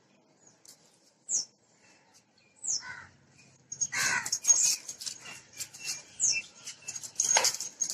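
Birds calling in a garden: short high chirps that drop in pitch, about every second or so. From about four seconds in, louder, harsher calls join them, along with rustling noise as the phone is carried.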